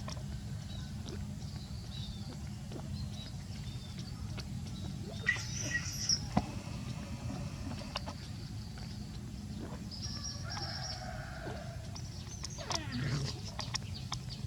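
Outdoor ambience: a steady low hum with scattered clicks and short high chirps, and one held animal call lasting about a second and a half, about ten seconds in.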